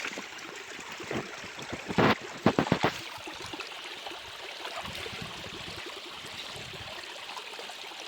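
Water flowing steadily with an even rushing sound. A handful of sharp, sudden sounds stand out about two to three seconds in.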